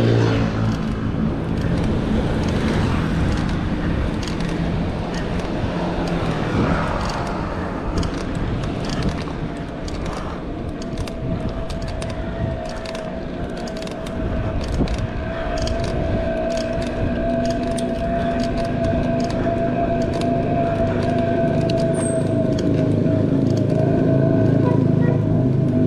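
Urban road traffic heard while riding a bicycle: motor vehicles running close by, with a steady low rumble under it. From about ten seconds in, a vehicle's steady pitched drone joins and holds nearly to the end.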